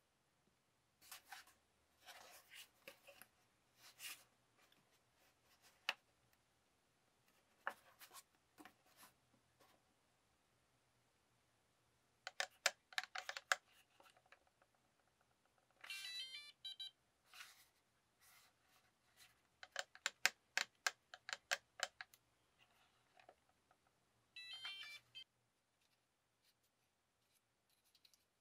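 Plastic clicks and handling rattles from a gamepad-style FPV radio controller and its card packaging. A quick run of electronic beeps comes about halfway through and again near the end.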